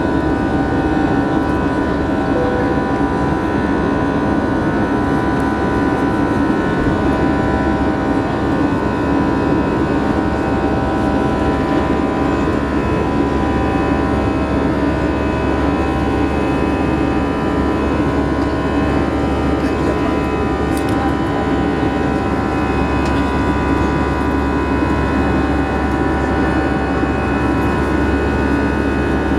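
Jet airliner's wing-mounted turbofan engines at takeoff climb power, heard from inside the cabin: a loud, steady rush of noise with several steady whining tones over it.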